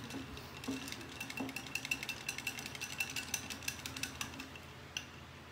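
Paintbrushes clattering in a jar as a hand rummages through them: a quick, uneven run of small clicks that stops near the end.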